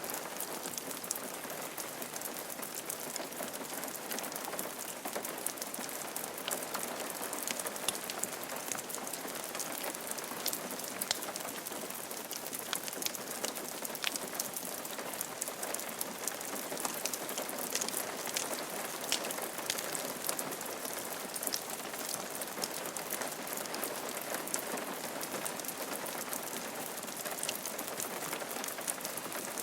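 Steady rain falling on a roof, a dense hiss with many sharp individual drop ticks throughout.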